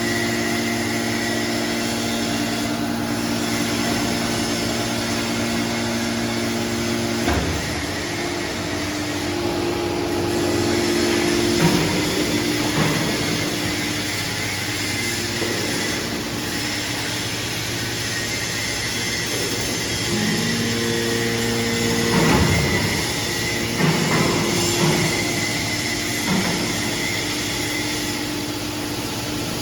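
Hydraulic scrap metal baler running: a steady machine hum whose tones change a few times, with several short metal clanks and knocks, the loudest about two-thirds of the way through.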